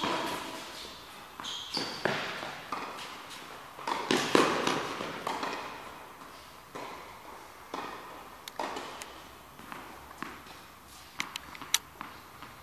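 Tennis balls struck by racquets and bouncing on an indoor court, an irregular series of sharp hits, each echoing in the large hall. The loudest hits come about four seconds in, and a few quicker, lighter ticks follow near the end.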